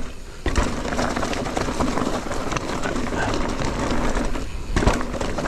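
Mountain bike riding down a dirt trail: steady tyre noise and rattling of the bike over rough ground, with a heavy thud about half a second in and another near the end.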